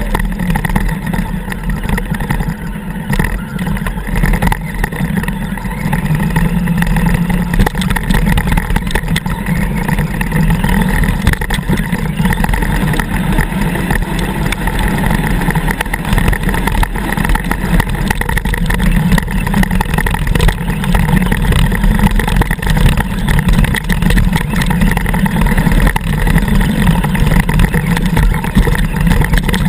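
Electric motor and gear drivetrain of an Axial Wraith RC truck running steadily, picked up by a camera mounted on the truck, with many small knocks and rattles as it drives over the ground.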